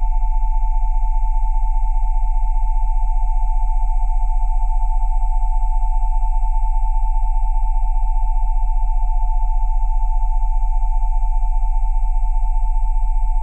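Steady electronic sine tones at 727, 787 and 880 Hz layered over a very low 20 Hz tone, held without change. This is a Rife-frequency set played against whooping cough.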